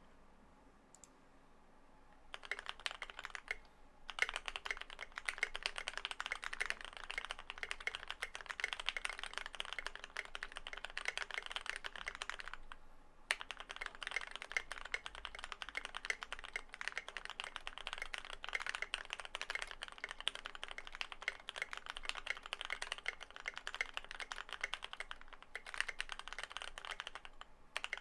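Fast typing on an Idobao ID80 v1 mechanical keyboard with lubed, filmed Gateron Yellow linear switches, Durock V2 stabilizers and Tai-Hao keycaps, dampened with PE foam, tape mod and polyfil. A dense stream of keystrokes starts about two seconds in and stops briefly near four seconds and again near thirteen seconds.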